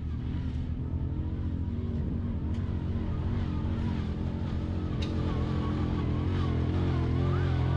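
Side-by-side UTV engine running hard as it climbs a steep dirt hill, growing steadily louder as it comes up toward the listener.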